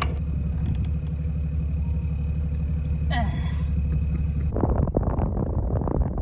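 Jeep engine running in a steady low drone, with a brief snatch of a voice about three seconds in. About four and a half seconds in, the sound cuts to a rougher, noisier rumble with crackling.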